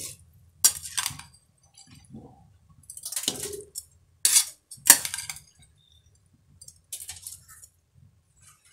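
Metal utensils clinking against an aluminium pressure cooker as soaked raw rice is tipped into boiling water and spread with a ladle: a handful of sharp clinks spread over several seconds.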